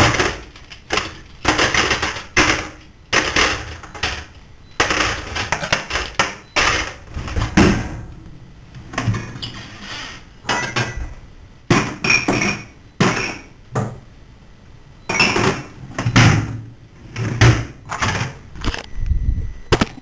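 Kitchen clatter: a run of knocks, clanks and scrapes from dishes, pots and utensils at uneven spacing. A few of the hits leave a short ring.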